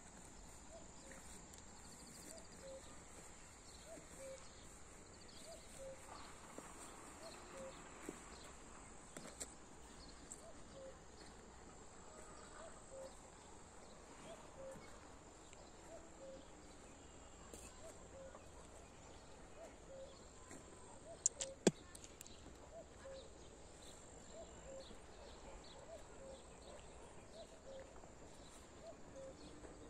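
Faint outdoor ambience: a steady high hiss, a faint short note repeating about once a second, and a couple of sharp clicks about two-thirds of the way through.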